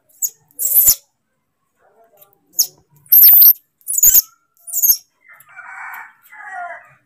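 Baby macaque screaming in distress: a series of short, very shrill screeches, the loudest just after three seconds in, then a hoarser, rasping cry near the end.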